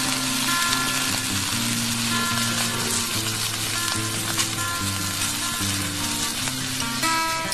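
Beef steak sizzling as it sears in a hot frying pan.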